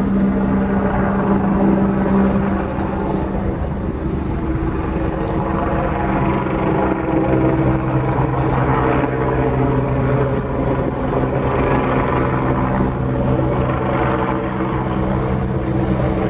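Helicopter drone overhead, a steady low rotor and engine hum over a general outdoor rumble, with a lower tone joining about seven seconds in.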